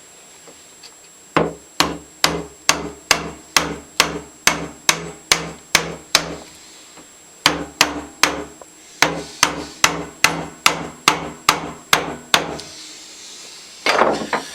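Light hammer taps through a wood block, driving an oiled part of a Stanley No. 113 circular plane back into its dovetailed seat. The taps come evenly, about two and a half a second, stop for about a second just after halfway, then go on; a brief clatter follows near the end.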